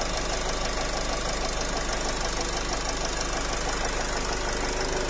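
Nissan X-Trail 2.0 dCi four-cylinder turbodiesel idling steadily, with a fast, even knock and a thin steady whine running through it. The knock is put down to a piston knocking, and something in the engine squeals.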